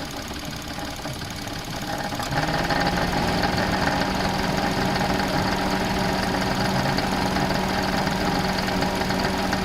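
Suzuki Alto engine running with a rattle from the engine bay. About two seconds in, the engine speed steps up, and the sound grows louder and holds steady. The rattle comes from the alternator, which is not running true and wobbles on its damaged lower mounting bracket and bolt.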